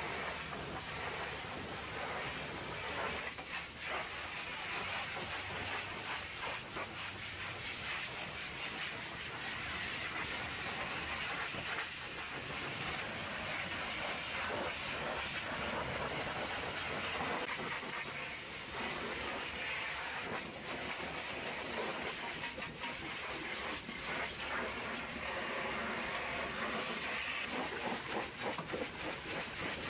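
Hot-water pressure washer lance spraying against a truck's steel bodywork and trailer frame: a steady hiss of the jet with water splattering off the metal.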